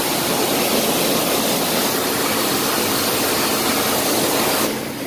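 Hot-water pressure washer wand hissing steadily as it sprays steaming water over a car's engine bay. The hiss drops briefly near the end, then comes back.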